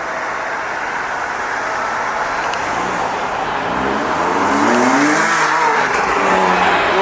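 Car on a road: steady engine and tyre noise growing louder, with the engine note rising in pitch about four seconds in and falling again a second or so later.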